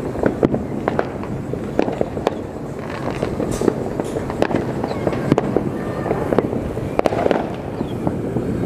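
Fireworks and firecrackers going off all around, many overlapping bangs and pops in quick succession over a steady rumble.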